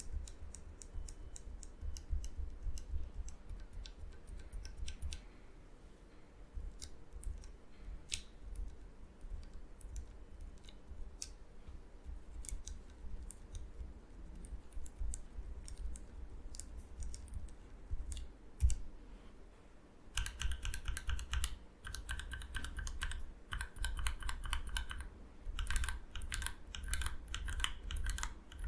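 Typing on a mechanical keyboard fitted with Gateron Oil King linear switches: scattered separate keystrokes at first, then fast, dense runs of typing for the last third.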